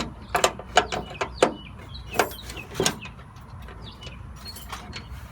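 Irregular metallic clicks and knocks of a wrench working the bolts that hold a truck's hood, most of them in the first three seconds.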